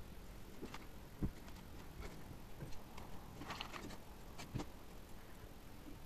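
Faint scattered clicks and small knocks of hands handling wires and the vacuum's plastic housing, with a few light taps in a row about halfway through.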